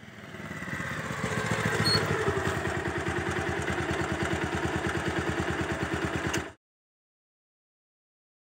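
Motorcycle engine coming closer and slowing, its note falling, then running at a steady, evenly pulsing low speed. The sound cuts off suddenly about two-thirds of the way through.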